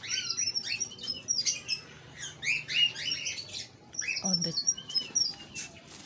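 A flock of caged pet birds chirping: many quick, high chirps overlapping with no break.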